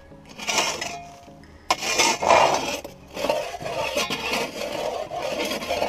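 Packed dirt being scraped out of an excavator's track undercarriage in repeated strokes of about a second each, with a sharp knock about two seconds in. Background music plays underneath.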